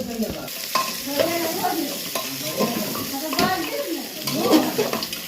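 Food sizzling in a hot pan as it is stirred, a spoon scraping and now and then clicking against the pan, with people talking over it.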